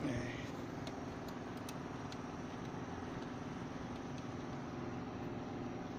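A motor vehicle engine idling steadily, with a few faint clicks over it.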